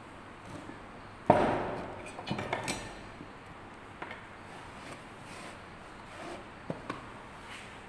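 Hand-packing moulding sand into a metal moulding flask. About a second in there is a sharp knock with a short rushing tail, then a few lighter knocks, and a couple of small clicks near the end.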